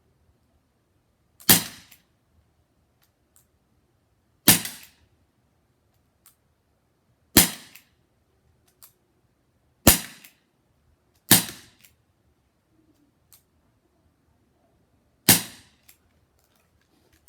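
Crosman SNR 357 CO2 air revolver fired six times, a sharp crack each time, at uneven intervals of about one and a half to four seconds. Faint ticks come between some of the shots.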